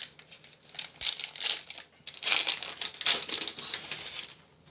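Foil Pokémon booster pack wrapper crinkling as it is handled and opened, in irregular rustling bursts that are loudest through the middle and die away near the end.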